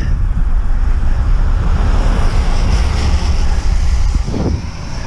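Wind buffeting the microphone of a rider moving along a road, with a steady low rumble underneath.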